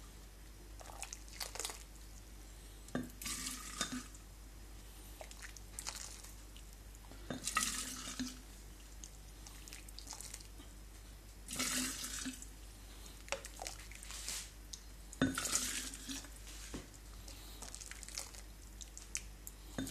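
Brine being spooned from a pot into a glass jar of quail eggs: a metal spoon clinks against the pot, then liquid splashes and trickles into the jar, repeated about every four seconds.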